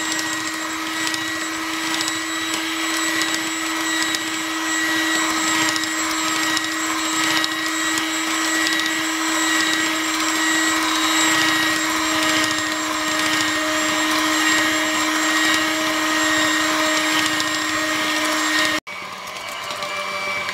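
Electric mixer running steadily, its motor whining at one even pitch as the beaters churn a thick cake batter of butter, sugar, eggs and flour. It breaks off abruptly near the end.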